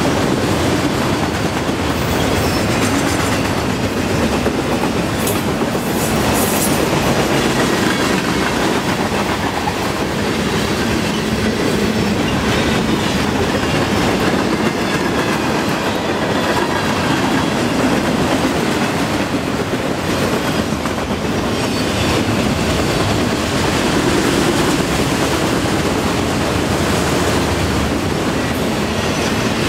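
Freight cars rolling past close by: a steady rumble of steel wheels on rail with the clickety-clack of wheels over rail joints, and brief high wheel squeals a few seconds in.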